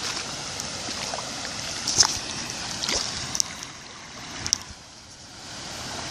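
Floodwater rushing in a steady noisy wash, with a few sharp clicks in the middle. The rush drops back for about a second near the end, then swells again.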